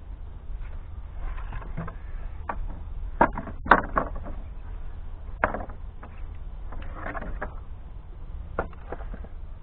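Split firewood pieces knocking together as they are picked up and stacked: several sharp wooden knocks, the loudest about three and a half seconds in, over a steady low rumble.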